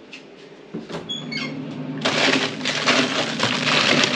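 Plastic bags of frozen food crinkling and rustling as a hand rummages through a freezer, loud and crackly from about two seconds in, after a few light clicks and a short squeak about a second in. A low steady hum runs under the crinkling.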